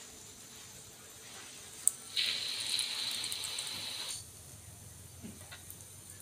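A metal clink, then a burst of hot-oil sizzling for about two seconds as a batter-coated kembang goyang (rose cookie) mold frys in the pan, stopping suddenly.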